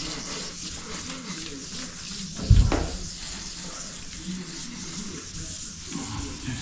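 Hand wet-sanding of primer on a car's body panel: a steady wet rubbing hiss of sandpaper on the soaked surface, with one thump about two and a half seconds in.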